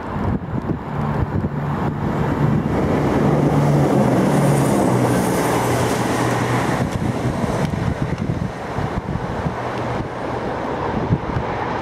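Steam locomotive hauling a passenger train toward the listener, its exhaust and running noise growing louder over the first few seconds, with wind buffeting the microphone.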